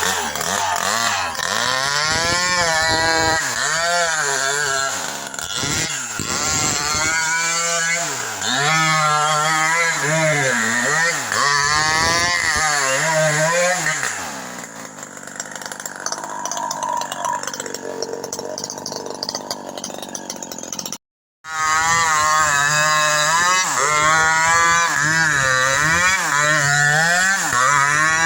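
Chainsaw engine revving up and down over and over, its pitch rising and falling. About halfway through it drops to a lower, quieter run for several seconds. After a sudden half-second cut-out it revs up and down again.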